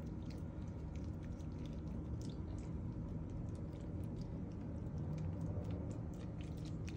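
Milk pouring in a thin stream from a plastic jug onto broccoli florets in a glass baking dish: a soft, irregular spatter of many small ticks over a steady low hum.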